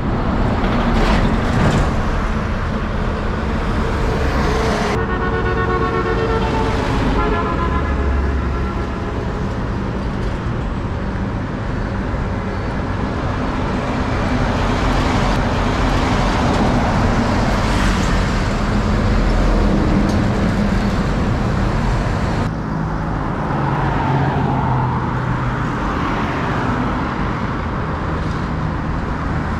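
Highway traffic with container semi-trucks and other vehicles passing, a steady mix of engine and tyre noise. About five seconds in, a vehicle horn sounds for roughly three seconds, in two stretches.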